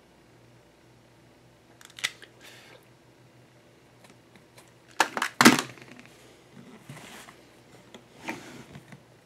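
Hand-work noise on leather at a workbench: a sharp click about two seconds in, a cluster of loud knocks around the middle, and softer rustling of the leather being handled near the end, over a low steady hum.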